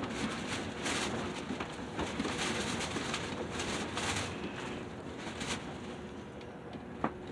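Close-up eating sounds from a frozen SpongeBob popsicle held at the mouth: irregular short, wet mouth noises, about one or two a second, with one sharp click near the end.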